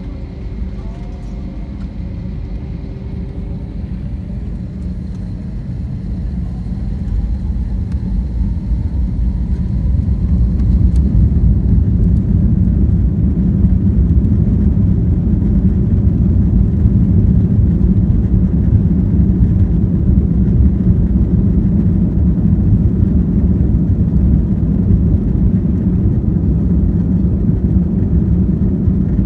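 Airliner jet engines spooling up and accelerating for takeoff. A faint whine rises in pitch over the first ten seconds while a heavy low rumble builds, then the rumble holds loud and steady.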